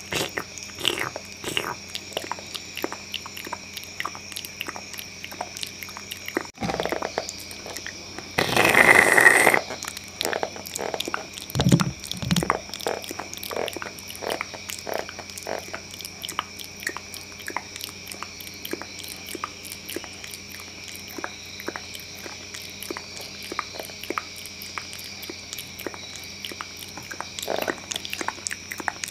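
Close-to-the-microphone ASMR mouth sounds: a steady stream of rapid small clicks and smacks, with a loud burst of noise lasting about a second around nine seconds in and two low thuds just after.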